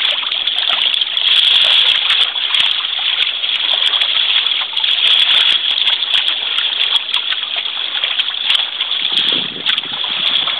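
Water rushing and splashing along the hull of an outrigger sailing kayak, a steady hiss that swells and eases.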